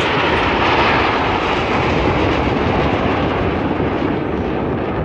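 Aermacchi MB-339 jet trainers making a low pass: a loud jet rush that peaks about a second in and slowly eases off.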